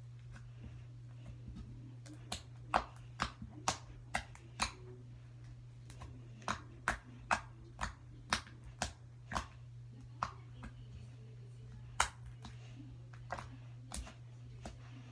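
Homemade glue slime being squished and pressed by hand, making irregular sharp clicks and pops, thickest in the middle of the stretch. A steady low hum runs underneath.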